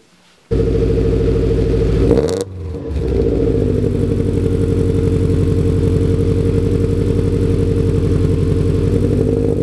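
Exhaust of a 2006 Subaru STi's turbocharged 2.5-litre flat-four fitted with an unequal-length header, idling with the typical uneven boxer rumble. About two seconds in there is one quick throttle blip, and then it settles back to a steady idle.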